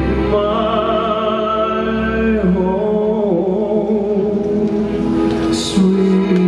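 A male singer holding long notes with vibrato over instrumental backing music, one long high note for about the first two seconds, then lower notes.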